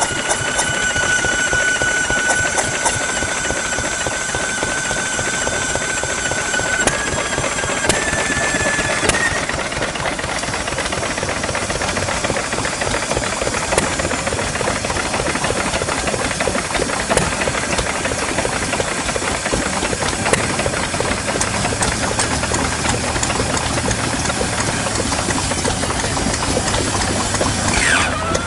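Yanmar K6 single-cylinder diesel stationary engine running steadily, with a fast, hard knocking beat. For the first seven seconds a thin whistling tone rides over it, stepping up in pitch twice.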